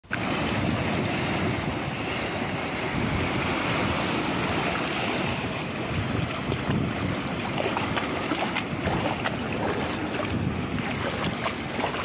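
Small sea waves washing over and around shoreline rocks: a continuous rush of water with small splashes and crackles, more of them in the second half. Wind rumbles on the microphone underneath.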